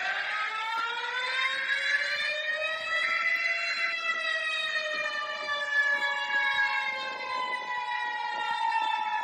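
Emergency warning siren wailing: one slow rise in pitch over about four seconds, then a slow fall, with a steady higher tone joining about five seconds in.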